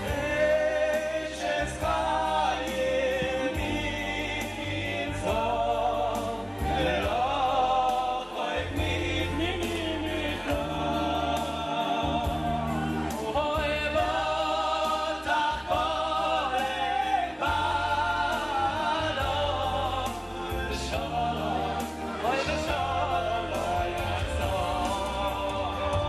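Live male vocals sung into microphones over an electronic keyboard, with held bass notes that change every second or two under the singing.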